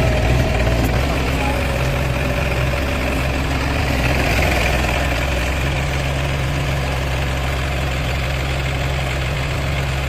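Highway pile driver's engine running steadily while its hydraulic hammer is worked from the control levers. A further low steady hum joins in about halfway through.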